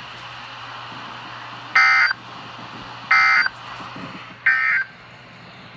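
Three short bursts of Emergency Alert System data tones, the end-of-message signal closing the flood warning, played through a weather radio's speaker. Each burst is a harsh two-tone digital chirp about a third of a second long, about a second and a half apart, over a steady radio hiss.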